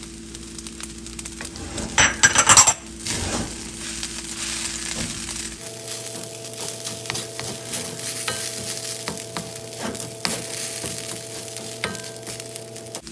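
Quinoa and green peas sizzling in a hot wok while a wooden spatula stirs and scrapes them against the metal, with louder scraping about two seconds in. A steady hum runs underneath.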